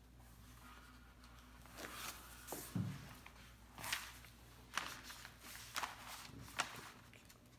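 Large sheets of printmaking paper being lifted and turned over on a table: rustling, crinkling strokes about once a second, with a soft thump about three seconds in.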